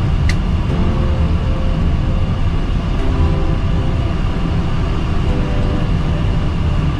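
Steady low rumble of a jet airliner rolling on the runway after landing, heard from inside the cockpit: engine and wheel noise. A brief high tick sounds about a third of a second in.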